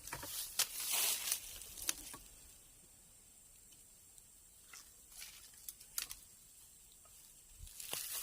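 Rustling and crackling in the first two seconds, then a quiet stretch with a few soft clicks, and more rustling near the end.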